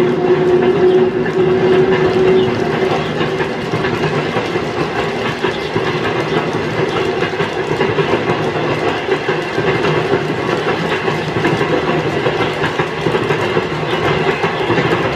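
N-gauge model freight wagons rolling past on the track, a steady clattering rattle of small wheels over the rails. A locomotive motor's hum fades out after about three seconds.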